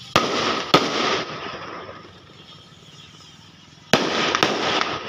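Fireworks rockets going off: a sharp crack followed by a second crack and about a second of hissing rush. The pattern comes near the start and again about four seconds in.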